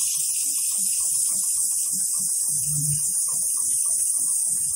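Heavy-duty programmable pattern sewing machine stitching through thick polyester webbing, its needle mechanism knocking in a quick, even beat. A steady hiss of compressed air from the needle-cooler nozzle runs under it.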